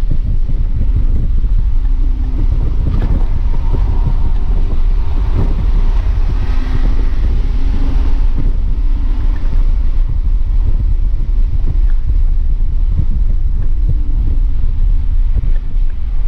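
2007 BMW 328i's inline-six engine pulling hard at full throttle around 5,500–6,000 rpm, heard inside the cabin under heavy wind and road rumble. Near the end it comes off the throttle and the revs fall to about 4,000 as the car brakes.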